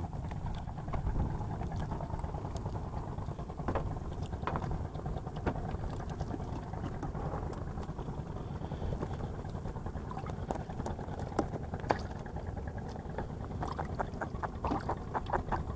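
Steady low rumble with light clicks and knocks as a small fish is unhooked and handled over a plastic bucket, with two sharper knocks about twelve seconds in; near the end, a quick run of crinkling clicks.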